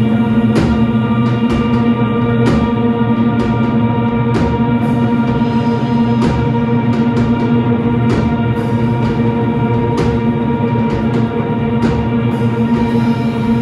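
Live rock band playing a droning instrumental passage: electric guitars and baritone bass hold a steady chord, with drum kit hits and cymbal crashes scattered irregularly through it.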